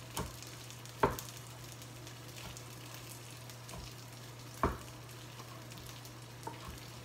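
Kitchen knife slicing through a breaded chicken breast and knocking on a wooden cutting board: three sharp knocks, about a second in, and the loudest one near the middle, then a lighter tap near the end. A faint crackle and a steady low hum run underneath.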